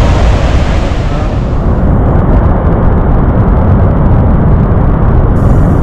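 Loud roar of a big waterfall in full monsoon flow heard close to its base: a dense, heavy low rumble. From about a second and a half in, the sound turns duller as the high end drops away.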